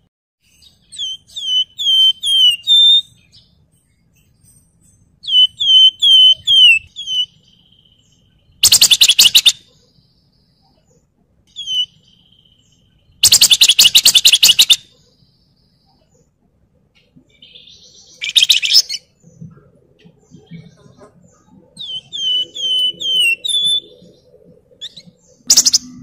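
Caged Javan fulvetta (wergan Jawa) singing. Phrases of about five quick, clear, falling whistles alternate with loud, harsh, buzzy rattles, and the rattles are the loudest sounds.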